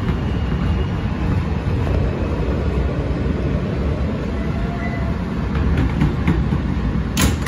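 Steady low rumble of an R160 subway car running into a station, heard from inside the car. A brief sharp burst of noise comes near the end.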